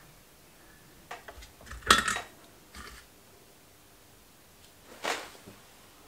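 Small metal parts clinking and tapping as they are handled and set down on a workbench: a few short sharp clicks, the loudest about two seconds in and another about five seconds in.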